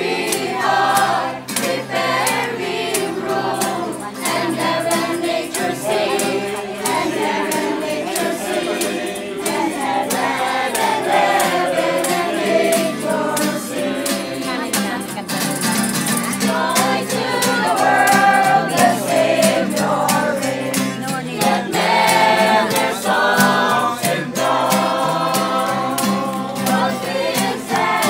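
A mixed group of carolers singing a Christmas carol together, accompanied by a strummed acoustic guitar.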